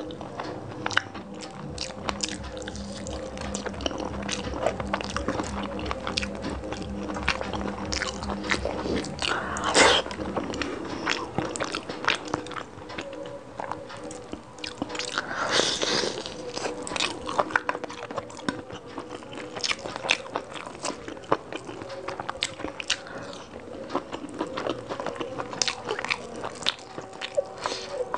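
Close-miked eating by hand: wet chewing and mouth clicks, with fingers squishing and mixing vegetable pulao and meat curry on a plate.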